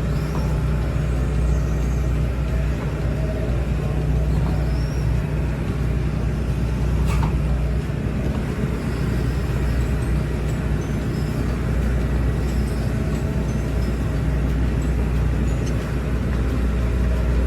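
Hydraulic excavator's diesel engine running steadily, with a single sharp metallic clank about seven seconds in.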